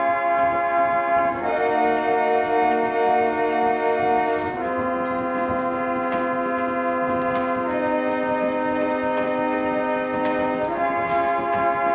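Antique W. Bell & Co. reed organ playing slow, sustained chords, each held about three seconds before moving to the next, with a few faint clicks near the chord changes.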